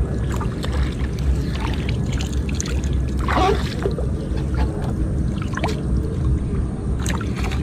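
Swamp water sloshing and splashing as a hand scoop net is swept through it and lifted out, with a louder splash about three seconds in, over a steady low rumble.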